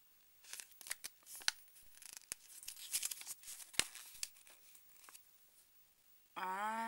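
Paper instruction leaflet and packaging rustling and crinkling as they are handled, with scattered small clicks and taps; it stops about five seconds in.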